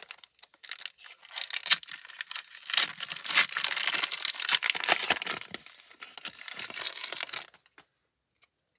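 Foil wrapper of a Pokémon trading-card booster pack being torn open and crumpled: a dense crinkling, crackling rustle that stops about a second before the end.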